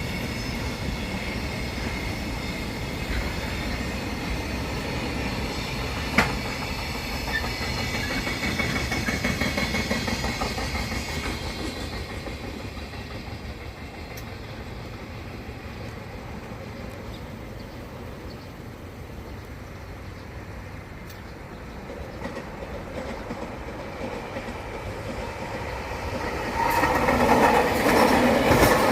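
A train running through the station with wheel-on-rail clatter and high ringing tones from the rails, fading to a quieter rumble midway. There is one sharp click about six seconds in. Near the end a much louder rush of train noise begins suddenly.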